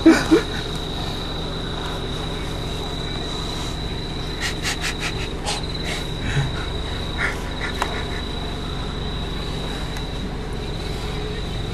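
A steady high-pitched trill of crickets over the low, even hum of an idling car, with a few light clicks four to six seconds in.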